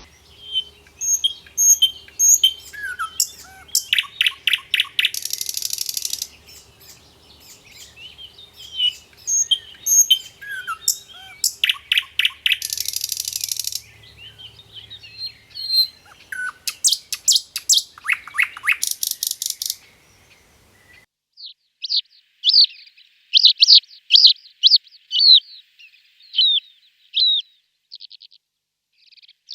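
Songbirds calling and singing: high chirps, short whistled glides and rapid trills. About two-thirds of the way through, a different bird takes over with quick runs of short, falling chirps.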